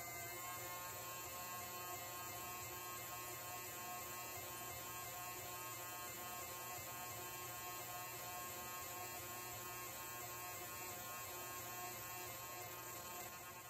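Air-powered pencil die grinder running at speed, a steady buzzing whine as its small stone grinds the jaws of a four-jaw lathe chuck true. The level dips slightly near the end.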